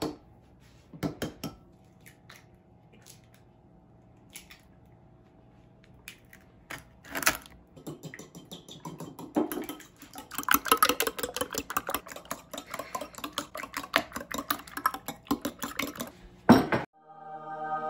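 Eggs cracked on the rim of a ceramic bowl, a couple of sharp knocks at the start, then a metal fork whisking raw eggs in the bowl: a fast, steady run of clinks against the ceramic for most of the second half. Music comes in suddenly near the end.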